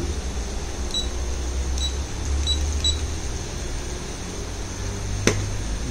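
Four short high-pitched beeps from a toy nano drone's handheld remote control as its buttons are pressed, over a steady low hum. A single sharp click near the end.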